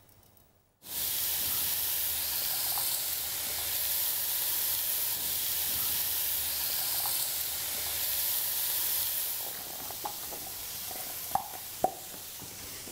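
Diced onions hitting hot fat in a stainless-steel pot: a sudden sizzle about a second in, then steady frying as the onions are sweated. The sizzle eases a little toward the end, with two short clicks.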